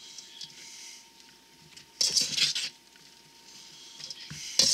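Salad of shredded lettuce being tossed in a large stainless steel bowl with a metal utensil: leaves rustling and the utensil scraping and clinking against the bowl. It comes in two brief bursts, about two seconds in and near the end, where there is a sharp clink.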